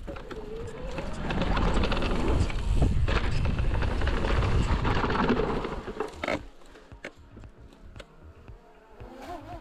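A mountain bike ridden fast down a forest trail: wind rushing over the microphone with tyre noise and small rattling clicks from the bike, easing off sharply about six seconds in to quieter rolling.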